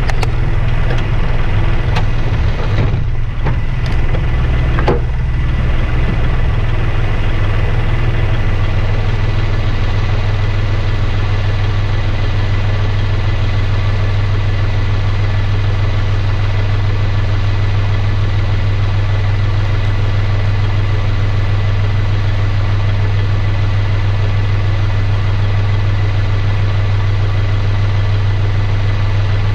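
Kubota compact tractor's diesel engine idling, heard close up, with a couple of knocks in the first few seconds before it settles into a steady, even hum.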